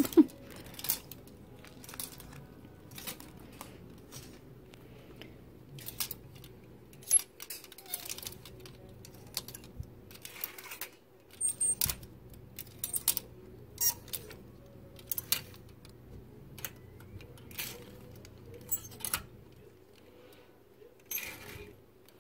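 Plastic clothes hangers clicking and scraping along a metal clothing rail as garments are slid aside one at a time, in irregular sharp clicks, sometimes a few in quick succession.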